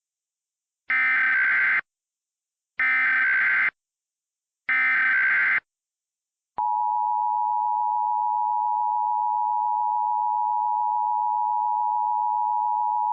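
Emergency Alert System SAME header: three short bursts of coded data noise, about a second apart. After them, about six and a half seconds in, the steady two-tone EAS attention signal starts and holds.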